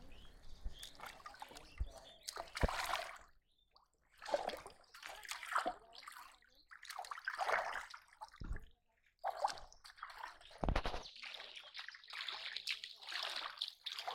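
Shallow water splashing and sloshing in irregular bursts as a steel bowl and hands are worked through it, with a few dull low thumps.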